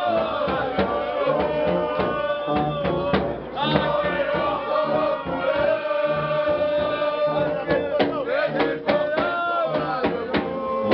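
A crowd of men singing a festive song together, backed by a brass band with sousaphones, and a drum beating time.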